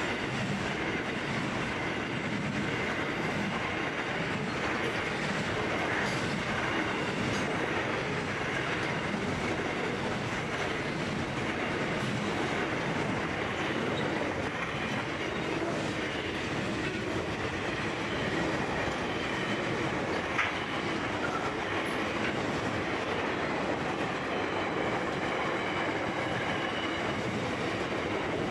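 Freight train's container wagons rolling steadily past: steel wheels running on the rails with a faint, steady high wheel squeal, and one sharp clank about two-thirds of the way through.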